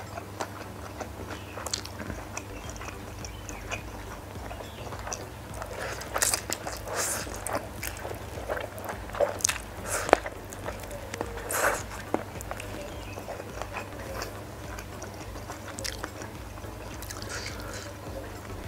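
Close-miked eating sounds: a person chewing and slurping Samyang hot chicken instant noodles, with wet mouth clicks and a few louder slurps around the middle.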